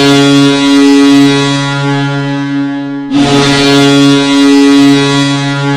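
Ice hockey goal horn blowing two long, steady blasts, the second starting about three seconds in, signalling a goal.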